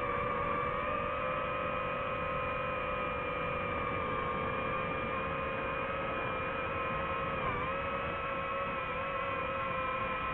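Drone motors and propellers humming steadily while hovering, the pitch dipping briefly about seven seconds in.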